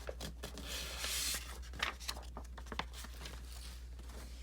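Paper prop-money bills rustling and crinkling as a stack is handled, with a longer rustle about a second in and scattered small crackles.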